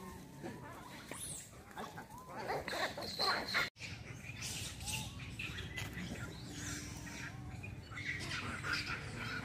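Scattered short chirping animal calls over outdoor background noise; the sound drops out for an instant a little under four seconds in.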